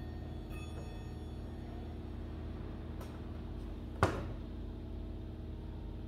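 A Citizen wooden-cased pendulum wall clock being handled while its hands are turned by hand, with a single sharp click about four seconds in over a steady low hum.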